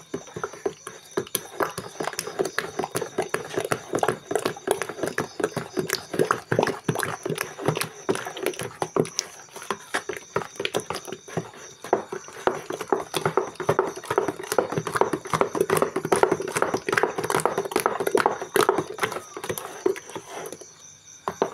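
A metal spoon stirring a thick chocolate tapioca batter in a metal pot, with rapid, irregular knocks and scrapes against the pot's sides. The stirring stops near the end. The batter has been scalded with boiling water and is being stirred until it thickens.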